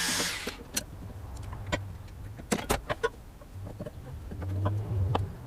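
A steady mechanical whirr stops about half a second in. It is followed by scattered clicks and knocks of metal tools and parts being handled, and a low motor hum for about a second and a half near the end.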